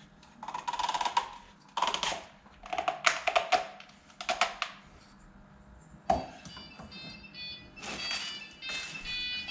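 Service parts being handled on a workbench: a run of short rattling, scraping clatters for the first few seconds, a sharp knock about six seconds in, then a scatter of short high ringing tones like metal clinking.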